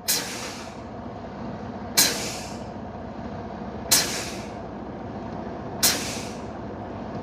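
Truck air brakes exhausting with a sharp hiss each time the service brake is pumped: four hisses about two seconds apart, each dying away quickly, with the engine idling underneath. The driver is dumping the air pressure to bring on the low air pressure warning.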